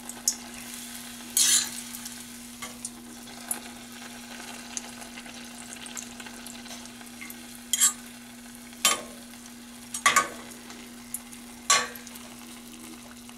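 A Bisquick-battered banana chunk deep-frying in hot oil at about 375°F, with a steady sizzle. A metal slotted skimmer clinks sharply against the pot several times as the piece is turned and held.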